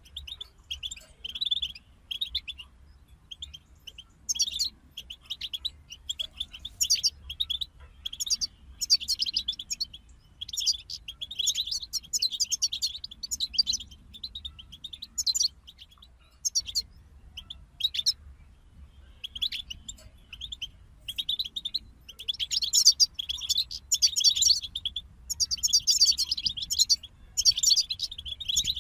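European goldfinches singing: a group of them twittering in fast, tinkling runs of high notes, phrase after phrase with short pauses between.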